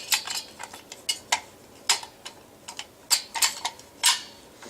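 Irregular light clicks and knocks of a vintage Simplex Chevron fire alarm being handled, its opened housing and parts tapping and shifting.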